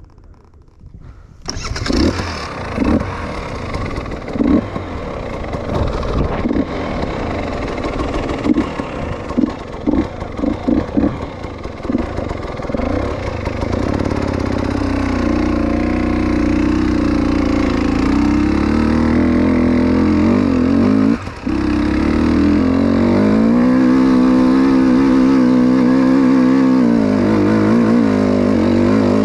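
Motorcycle engine starting about a second and a half in, revving unevenly in short blips, then running steadily with its pitch rising and falling as it is ridden, with one brief drop in level about two-thirds of the way through.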